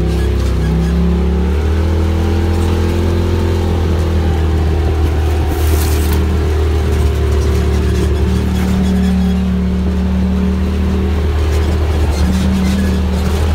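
Side-by-side UTV's engine and drivetrain running steadily under way on a dirt trail, a deep drone heard from inside the open cab.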